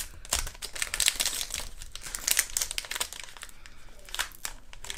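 Foil wrapper of a Pokémon trading-card booster pack crinkling in a rapid, irregular crackle as it is handled and pulled at to open it.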